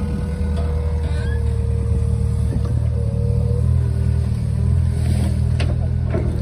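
Mini excavator's diesel engine running steadily under load, with a higher whine that shifts in pitch a few times as the boom and bucket work in deep mud. A few sharp knocks come near the end.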